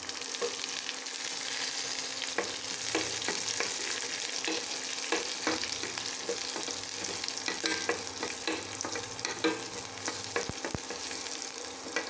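Garlic cloves frying in hot sesame oil with mustard seeds and curry leaves in a stainless steel kadai, sizzling steadily. A spoon scrapes and clicks against the pan many times as it is stirred.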